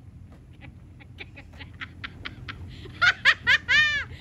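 A child's laughter: quick soft giggles coming faster and faster, then about four loud, high-pitched squeals of laughter from about three seconds in.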